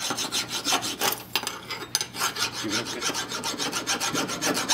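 Hand file rasping back and forth in quick strokes across a brass faucet body. The file barely bites into the metal, the sign that it is brass and not aluminium.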